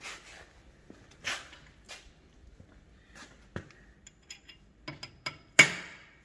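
A hammer tapping a centre punch against a threaded part inside a Ford F350 differential housing to knock it round and unscrew it: a series of irregular sharp metal clinks, some ringing briefly, with the hardest blow near the end.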